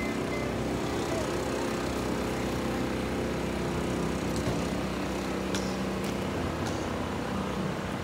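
A small engine running steadily, a constant droning hum, with a couple of faint clicks about halfway through.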